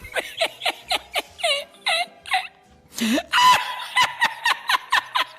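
A group of people laughing in quick, repeated bursts, louder about three seconds in, over background music.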